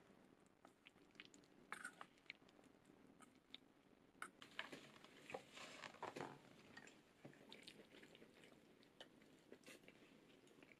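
Faint soft crunching and squishing of broccoli and vegetables being tossed with mayonnaise using chopsticks in a stainless steel bowl, with scattered light clicks and a busier stretch in the middle.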